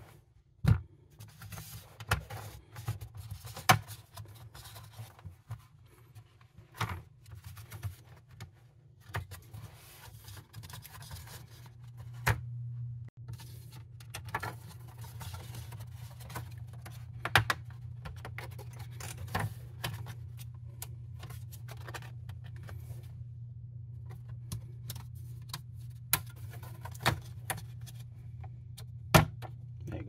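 Plastic clips of a laptop's bottom cover clicking and snapping as the cover is pried loose by hand around its edge, with irregular sharp clicks and knocks of plastic, the loudest near the end. A low steady hum runs underneath and grows louder about twelve seconds in.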